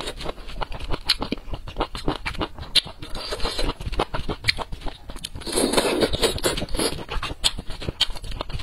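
Close-miked mukbang eating sounds: wet chewing and mouth clicks, with chopsticks scraping and tapping in a foil tray of spicy glass noodles and tofu. There is a louder wet stretch around the middle.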